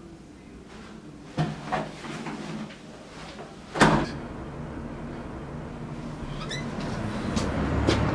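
A door opened and then shut with a bang a little under four seconds in, after a couple of lighter knocks. A rushing background noise then swells toward the end.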